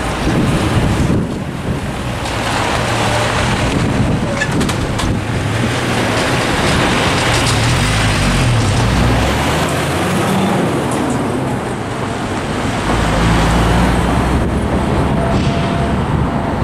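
Road traffic crossing the tracks: a heavy truck's engine pulls away and passes close, its pitch rising and falling about halfway through, followed by cars and a pickup.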